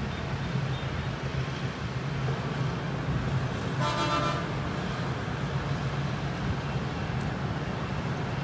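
Steady low background rumble, with one short, flat-pitched toot lasting about half a second, about four seconds in.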